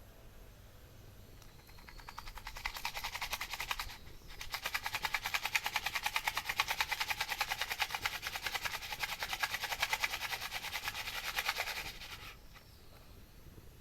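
Campfire of bamboo and oak firewood giving a fast, sputtering hiss that starts a couple of seconds in, breaks off briefly near the fourth second and dies down near the end. Faint thin whistles come before and after it.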